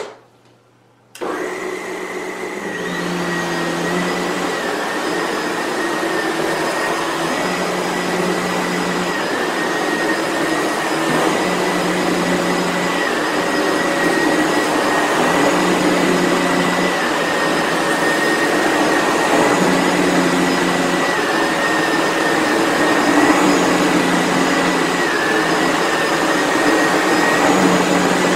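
Sebo Felix vacuum cleaner switched on with a click and running on carpet with its power head. About a second in the motor comes up to speed with a steady high whine. A lower part of the sound shifts in a regular cycle about every four seconds.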